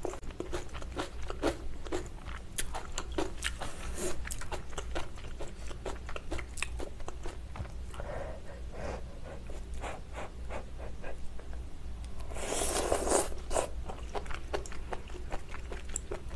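Close-up eating sounds of malatang: chewing and biting with many small wet clicks, and chopsticks working in the metal pot. About twelve seconds in there is a louder rush of noise lasting about a second.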